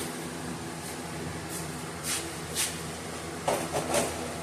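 Small parts being handled on a workbench: a few short rustles, then a quick cluster of light knocks and rustles near the end, over a steady low hum.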